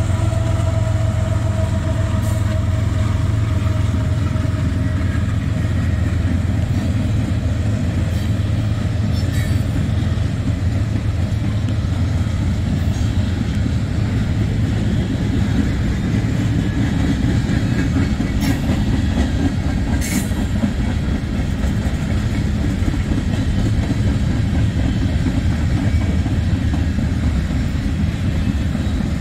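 CSX freight train's cars rolling past in a steady, heavy rumble, with a few sharp wheel clicks along the way.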